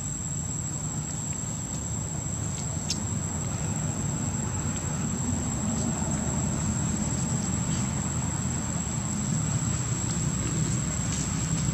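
Outdoor ambience: a steady, high-pitched insect drone over a low, steady rumble, with a few faint clicks.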